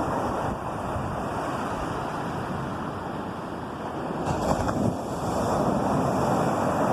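Ocean surf washing onto a shore: a steady rush of waves that swells briefly a little over four seconds in as a wave breaks.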